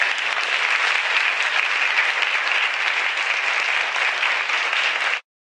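Audience applause, a steady dense clapping that cuts off suddenly near the end.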